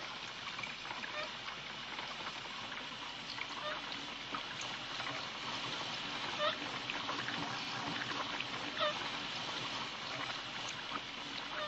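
Liquid trickling and bubbling steadily, with two louder gurgles in the second half: blood running through a transfusion tube from a man's arm into a woman's arm.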